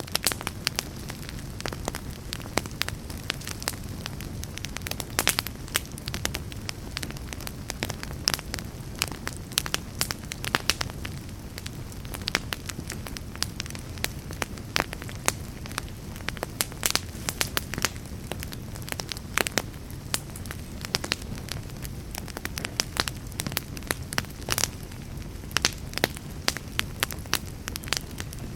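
Fire burning in a fireplace, crackling: a steady low rumble of flames with frequent irregular sharp pops and snaps.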